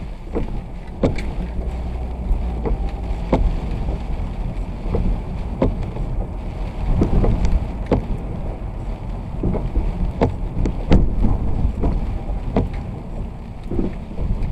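Low, steady road rumble of a vehicle driving in the rain, with irregular sharp taps and knocks scattered throughout.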